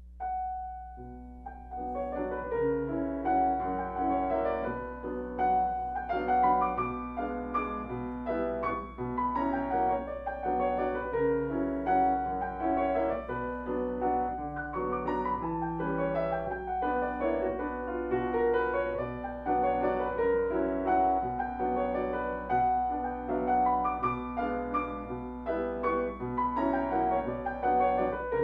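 Grand piano playing a solo classical piece, starting with a single note after a pause and moving into a steady flow of melody and accompaniment.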